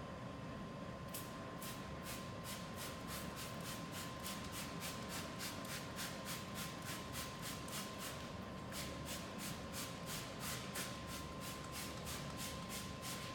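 Hand trigger spray bottle squirted over and over at a truck tire, a short hissing spray about three times a second, over a steady faint high hum.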